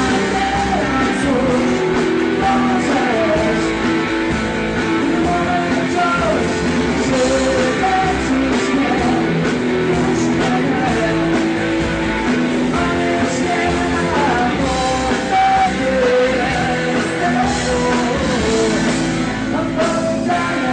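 Rock band playing loudly, a singer over electric guitars and drums.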